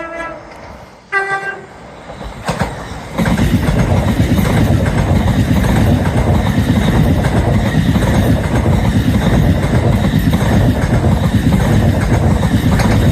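Two short horn notes from an LNER Azuma, a Hitachi Class 801 electric train: one at the start and a slightly higher one about a second in. From about three seconds in, the train passes at speed with a loud, steady rush of wheels on rail.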